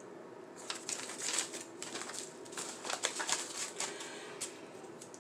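Paper crinkling and rustling as a folded note and a small paper bag are handled, a quick run of crackles that eases off near the end.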